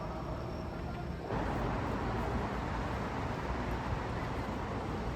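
Steady background noise with a low rumble and no distinct events, stepping up abruptly in level a little over a second in.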